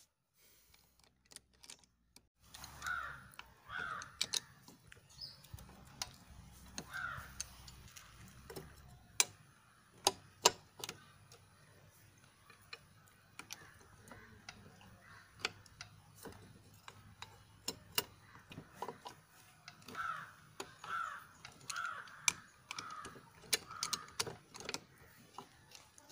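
Sharp metal clicks and taps of a box spanner and flywheel holder working the flywheel nut of a scooter. Crows caw a few times a few seconds in and again in a run near the end.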